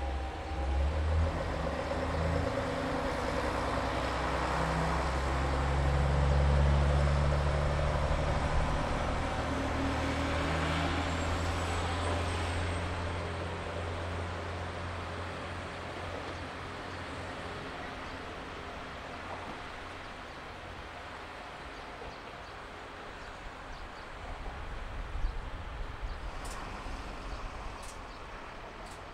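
KiHa 40-series diesel railcar pulling away from a station. Its diesel engine runs louder for several seconds as it gathers speed, then fades steadily as the train draws away. A few sharp clicks come near the end.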